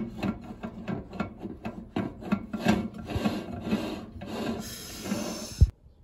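Glass microwave turntable plate being turned and shifted by hand on its drive coupler and roller ring, scraping and knocking against the oven floor two or three times a second, with a longer rub and a sharp thump just before it cuts off near the end. The replacement plate is being test-fitted to see whether it is the right one.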